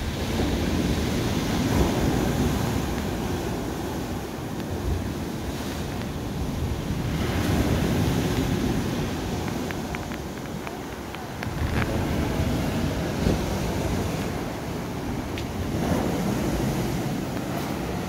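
Sea surf breaking and washing up a dark sand and pebble beach, swelling and easing every few seconds, with wind buffeting the microphone.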